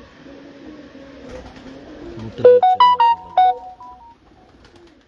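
Pigeons cooing low and wavering, then, about two and a half seconds in, a short loud electronic melody of about six clean stepped notes, a device chime.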